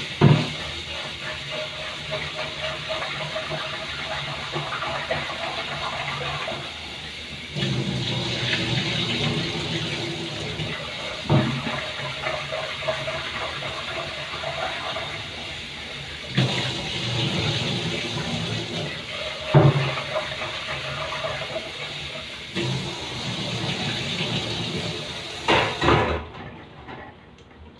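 Kitchen tap running water into a sink, the splash shifting several times as the flow or what it lands on changes, with a few knocks. The water is turned off suddenly near the end.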